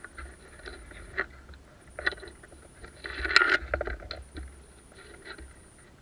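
Irregular rustling and crackling of brush and dry leaves as someone moves through forest undergrowth, with a louder, denser scrape about three seconds in.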